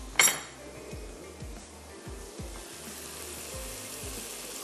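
Soft background music with a low, recurring beat over a faint sizzle of masala frying in a wok. A short, sharp noise sounds just after the start.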